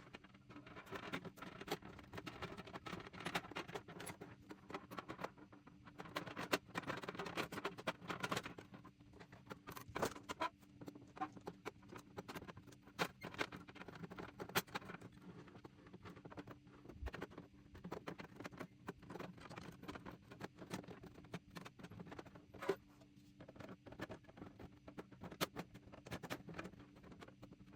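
Small items being handled and set down on a tabletop: scattered light clicks and taps with rustling, over a faint steady hum.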